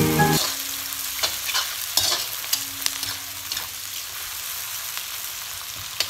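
Sliced onions sizzling in hot oil in a kadhai, stirred with a metal spatula that scrapes and clinks against the pan now and then. Background music cuts off about half a second in.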